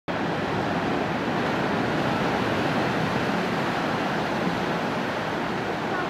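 Pacific Ocean surf breaking and washing up on a sandy beach: a steady, even rush.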